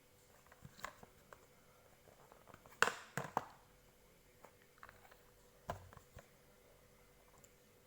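Handling noise from a packaged cough-syrup bottle and its carton: a few short clicks and knocks, the loudest a pair about three seconds in and another near six seconds.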